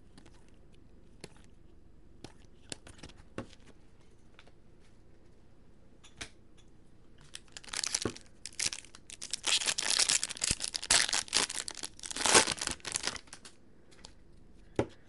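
Trading cards handled with soft scattered clicks, then, about seven and a half seconds in, the foil wrapper of a 2015 Bowman Chrome baseball card pack torn open and crinkled for about five seconds.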